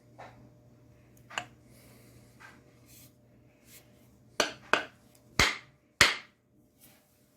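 Axe head being knocked onto its wooden handle to test the fit: a few light taps, then four sharp strikes in the last few seconds, the last the loudest.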